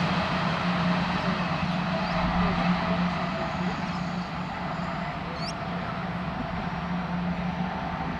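Electric suburban train running along the track and moving away, a steady rumble with a low hum that slowly fades. A small bird chirps briefly about five and a half seconds in.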